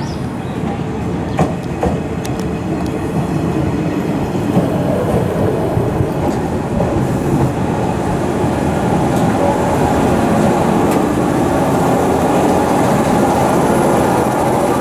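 JR West 103 series electric train running on the track, its noise growing steadily louder. A few sharp clicks come early on, and about two-thirds of the way through steady humming tones rise over the running noise.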